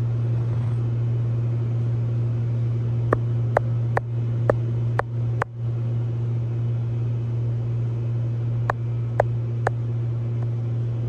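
A steady low machine-like hum, with two short runs of sharp clicks about two a second: six clicks near the middle and three more near the end.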